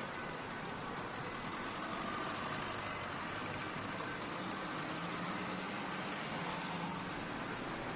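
Steady motorway traffic noise from vehicle engines running, with a low engine hum for a few seconds in the middle.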